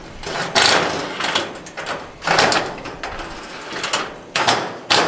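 Steel parts of a storage shed being handled during assembly, scraping and rattling in three bursts, the last near the end.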